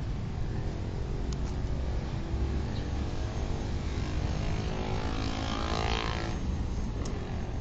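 Steady rumble of city traffic, with one vehicle passing and swelling louder about five to six seconds in.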